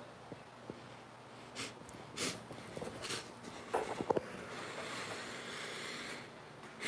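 Faint breaths and sniffs close to a phone's microphone, with a few soft knocks and rustles of the phone being handled about four seconds in.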